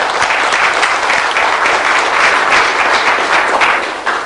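Audience applauding, many hands clapping together, tapering off near the end.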